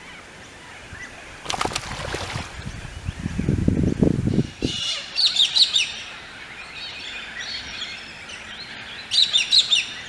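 Small birds chirping in quick bursts of high twittering calls, about halfway through and again near the end. Before them come a brief rustling and a low rumbling noise lasting a second or two.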